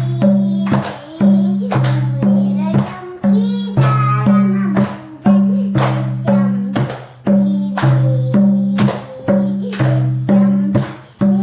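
Madal, the Nepali two-headed hand drum, played in a steady folk rhythm. Sharp strokes fall about twice a second over deep, ringing bass tones that recur every second or so.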